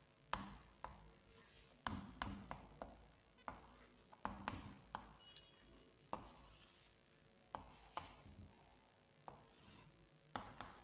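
Faint, sharp taps and clicks of chalk striking a chalkboard as words are written, several a second, irregular, with short pauses between strokes.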